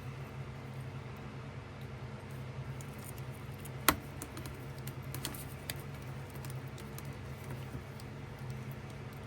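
Small clicks and taps of wooden sticks being handled and fitted together, with one sharp knock just under four seconds in, over a steady low hum.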